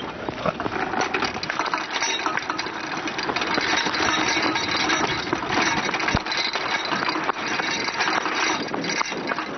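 Homemade kart rolling fast over rough asphalt, heard from on board: a steady clattering rattle of the wheels and frame over road noise, getting louder over the first few seconds as it picks up speed.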